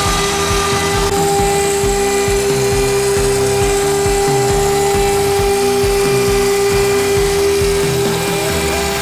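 AXIOM AR4 CNC router spindle running with a steady high whine as its end mill cuts polycarbonate, over a background music track.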